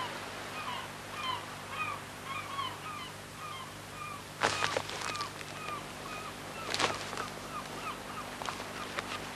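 Gulls calling over and over in short, quick cries, two or three a second. Two brief sharp noises break in about four and a half and seven seconds in.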